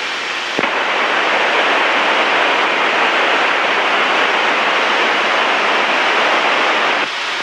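Aircraft radio static: a steady hiss in the headset audio that switches in with a click about half a second in and drops away near the end, between readings of the automated weather broadcast.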